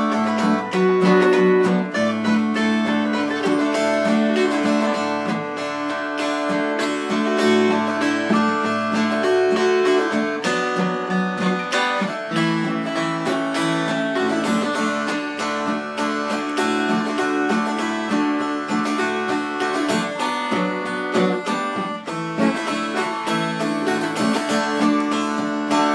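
A dreadnought acoustic guitar strummed in a steady rhythm, backing a second instrument that plays the melody of a lively old-time tune.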